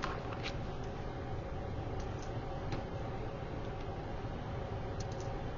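Steady low room hum with a few faint, light clicks scattered through it, as small diamond dots are picked up and set down on a paper layout.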